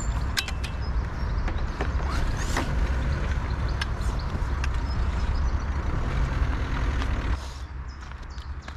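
Carbon match-fishing pole sections being handled and slid against each other, with scattered clicks, knocks and scrapes over a steady low rumble. The rumble drops off sharply about seven seconds in.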